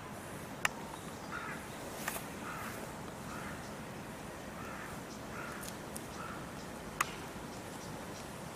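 A series of short animal calls, repeated about once or twice a second, with three sharp clicks in between.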